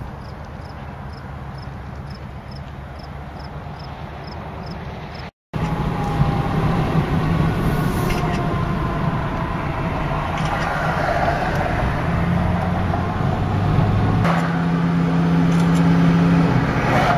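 Engine hum and tyre noise heard inside a pickup cab while driving on a highway. The engine note steps up and down a couple of times. It is preceded by a quieter outdoor hiss with faint regular ticking and a brief dropout where the footage cuts.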